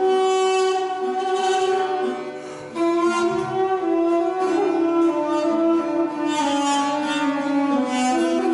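Duduk playing a slow melody in long held notes, over a plucked long-necked lute accompaniment. The melody breaks off briefly a little over two seconds in, then resumes.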